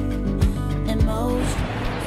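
Background music with a steady beat, a kick drum about twice a second under held tones.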